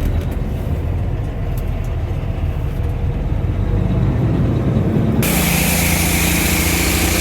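Heavy harvest machinery running with a low engine drone. About five seconds in it switches abruptly to a louder, hissier machine sound with a steady hum.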